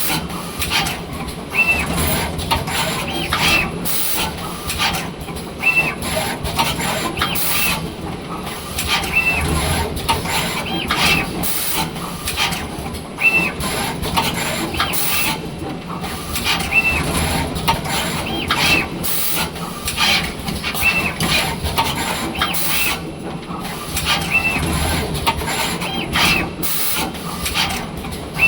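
Automatic wire soldering machine running through repeated cycles: mechanical motor and actuator noise with short sharp hisses and small tonal blips that recur every second or two.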